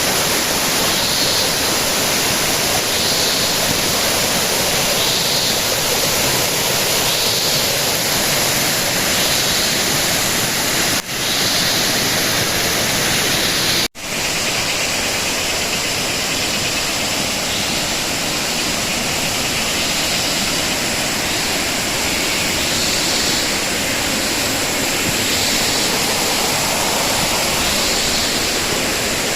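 Waterfall: a steady, even rush of falling water, broken off for an instant twice near the middle.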